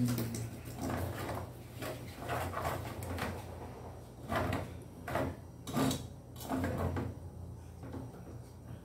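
Kitchen work at a counter: a run of irregular knocks and clunks, roughly one a second, from kitchenware being handled.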